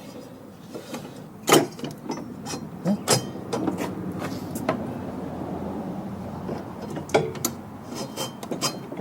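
Snowblower's rubber drive belt being worked loose and dragged against the pulleys and metal housing: a steady scraping rub in the middle, broken by several sharp knocks and clicks of metal and tools.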